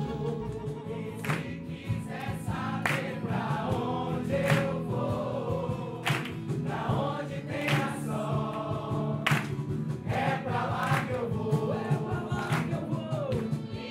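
A group of voices singing together over music, with a sharp percussive hit about every second and a half.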